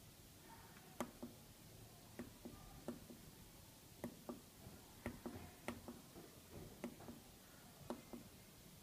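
Faint, sharp clicks of buttons pressed one at a time on the keypad of a CNC 6040Z control box's spindle VFD, about ten presses at irregular intervals, over quiet room tone.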